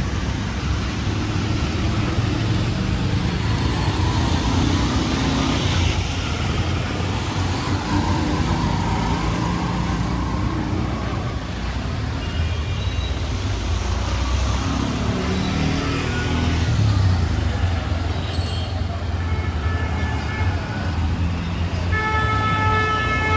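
Street traffic: vehicle engines running, with a steady wash of road noise. A horn sounds near the end.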